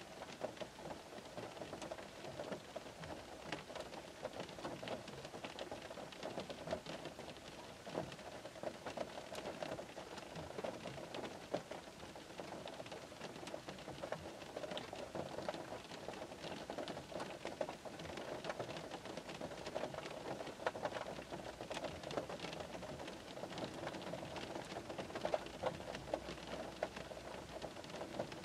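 Gentle rain pattering on the roof and windows of a parked car, heard from inside the cabin: a steady, dense patter of many small drop hits.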